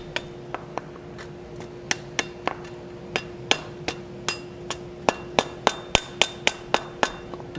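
Wooden mallet striking a red-hot steel leaf stem on the anvil horn, bending it round into a curve. A few light blows come first, then a steady run of about three blows a second from about two seconds in, with a steady hum underneath.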